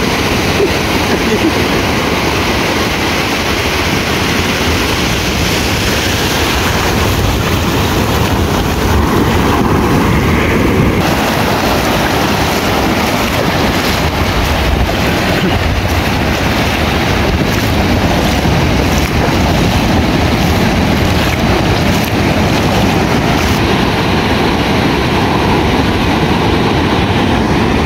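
Ocean surf breaking and washing up the beach: a steady, loud rush of water, with wind buffeting the microphone.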